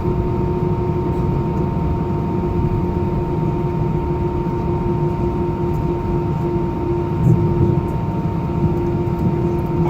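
Airbus A319 cabin noise: the jet engines running at idle, a steady low rumble with a constant whine of several held tones. The rumble swells briefly about seven seconds in.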